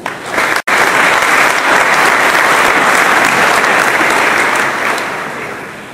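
Audience applauding, a dense steady clapping that fades toward the end. It cuts out completely for a split second near the start, a dropout in the tape recording.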